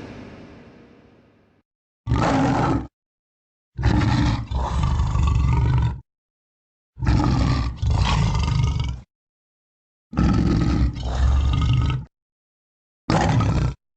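Monster roar sound effects: a loud earlier sound dies away in the first second and a half, then a run of separate growling roars with clean cut-offs. One short roar comes first, then three longer roars that each break into two parts, then another short one near the end.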